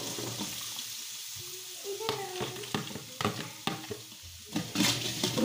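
Sliced onions sizzling as they fry in hot ghee in a large metal pot, with scattered sharp clicks and scrapes of a steel spoon against the pot. The clicks and the hiss grow louder near the end as the onions are stirred.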